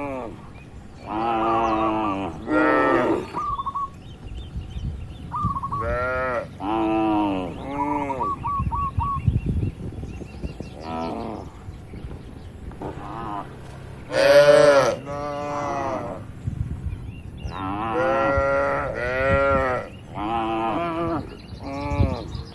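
A herd of cattle mooing again and again, many overlapping calls of about a second each from several animals, some deeper and some higher.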